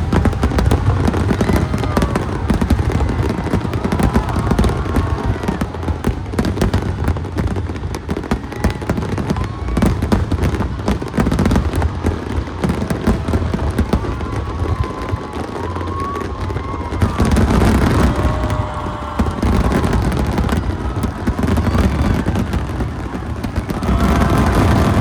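Aerial fireworks going off in a dense barrage: rapid overlapping bangs and crackling, swelling in two peaks, one past the middle and one near the end.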